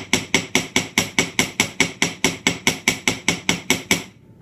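Hammer tapping nickel silver wire on a steel bench plate in quick, even blows, about five a second, each with a bright metallic ring, stopping shortly before the end. The blows are flattening the round loop of a wire J hook clasp.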